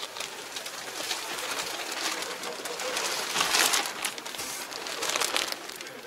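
Rustling and handling noise in irregular bursts, loudest a little past halfway: clothing and the camera brushing against things in a tractor cab.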